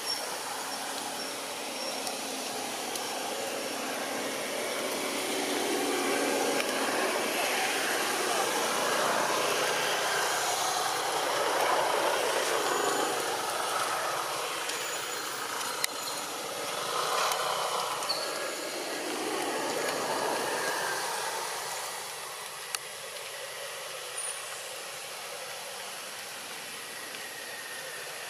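Distant engine noise that swells over several seconds, holds, then fades about three quarters of the way in to a lower steady hum.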